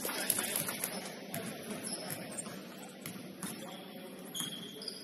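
Basketball game play in a gym: scattered knocks of the ball and feet on the court over a haze of echoing distant voices, with a couple of short high sneaker squeaks near the end.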